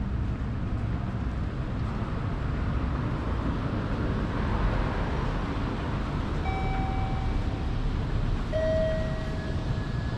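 Steady low rumble of city street traffic. In the second half a few faint steady tones sound, each held for about a second.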